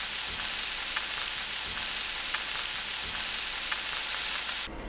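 Pork rolls (thin pork leg slices wrapped around glass noodles) sizzling as they fry over medium heat in a pan: a steady sizzle with scattered small pops. The sizzle cuts off suddenly near the end.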